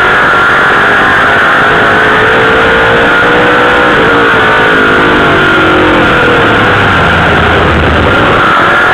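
Dirt late model sportsman race car's V8 heard from inside the car at race speed, loud and steady in level. The engine pitch climbs slightly, then drops away after about four seconds in.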